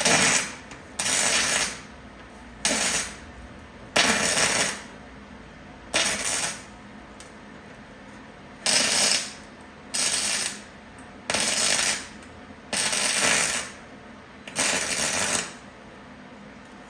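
Gasless flux-core MIG welder laying short stitch welds on thin car body sheet metal: the arc crackles and sputters in about ten separate bursts of half a second to a second each, with short pauses between them.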